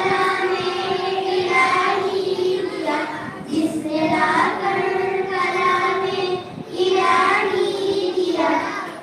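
A group of young girls singing an Urdu naat together, holding long notes, with short pauses between phrases about three and a half and six and a half seconds in.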